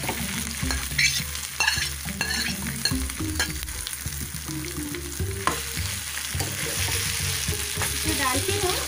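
Spiced mashed potato frying in hot oil in a non-stick pan while a metal spoon stirs and presses it: a steady sizzle, with scrapes and clicks of the spoon against the pan now and then.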